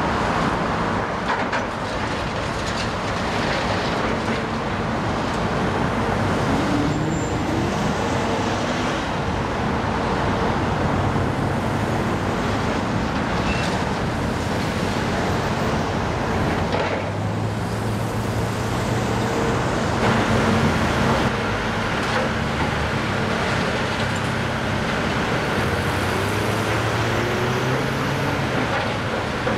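Heavy diesel demolition machinery running, its engine pitch rising and falling over a steady wash of noise, with a few short knocks.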